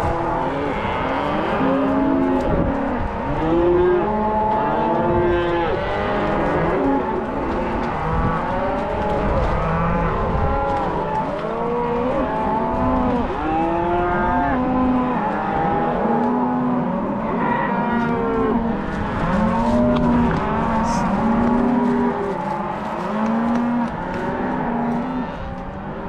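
A herd of cattle mooing and bawling continuously. Many calls at different pitches overlap without a break.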